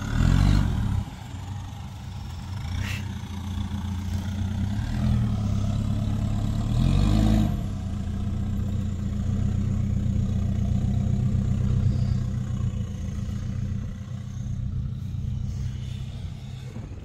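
Mitsubishi Triton pickup's engine running at low revs while crawling over dirt mounds in four-wheel drive, with two short rises in revs, about half a second in and again about seven seconds in.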